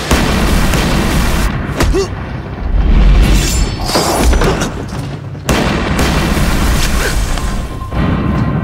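Action-drama soundtrack: deep booms and thuds over dramatic background music, loudest about three seconds in.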